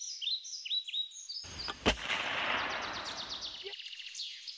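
Birds chirping in a rapid run of short falling notes; about a second and a half in, a sudden loud bang with a rumbling, hissing tail that dies away over about two seconds, while faint birdsong goes on.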